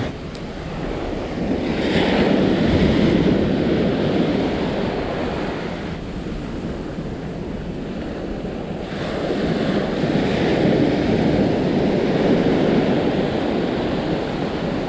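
Beach surf breaking and washing up over the sand, swelling twice as waves wash in, with wind buffeting the microphone.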